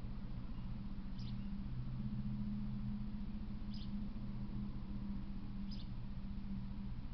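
Steady low hum with three brief, high squeaks: about a second in, near the middle, and later on. No train is passing.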